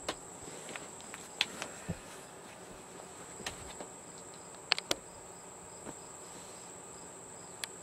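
A few light clicks and taps of parts being handled during TV repair, over a steady high-pitched whine; the sharpest two clicks fall close together just before the five-second mark.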